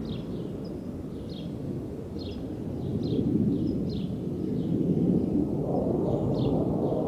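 Military jet aircraft rumbling overhead at a distance, the rumble swelling in the last few seconds. Short high chirps repeat about once a second over it.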